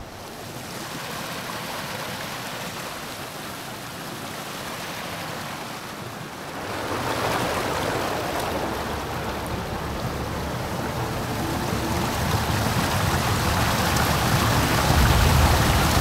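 Rushing water of a rain-swollen forest stream, a steady hiss that grows louder about seven seconds in and again near the end.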